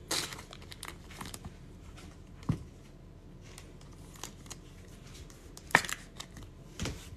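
Light plastic rustling and clicking as trading cards are handled and slid into clear plastic sleeves and a rigid card holder, with a few sharper clicks, the loudest about six seconds in.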